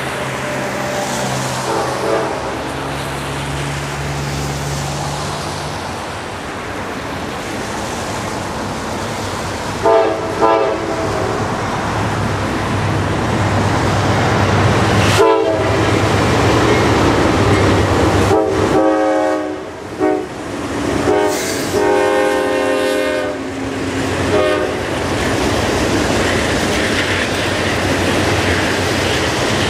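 Norfolk Southern diesel freight locomotives approaching and passing, the lead unit's air horn sounding several blasts: a faint one early, a short one about ten seconds in, then long blasts with a short one between. The horn sounds over the engines' steady rumble, and the wheels and cars of a double-stack intermodal train rattle past near the end.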